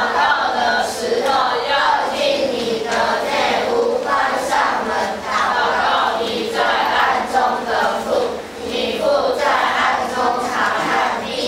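Children's choir singing a hymn in Chinese, phrase after phrase.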